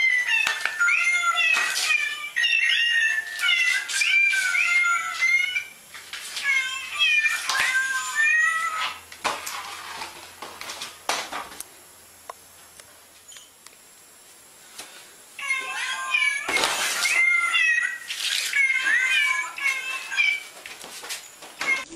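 Cats meowing over and over in runs of short, quick calls, with a quieter stretch in the middle.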